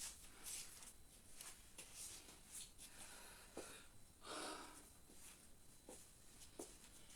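Near silence in a small room: faint breaths and rustles between sets of exercise, with a few soft taps.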